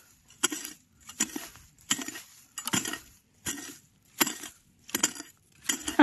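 Hoe blade chopping into stony soil covered in dry bamboo leaves, about eight strikes at an even pace of a little more than one a second, each a short hit with a light clink.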